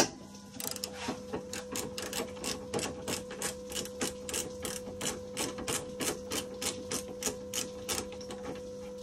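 Ratchet wrench clicking steadily, about three clicks a second, as small bolts are undone; a sharp knock right at the start.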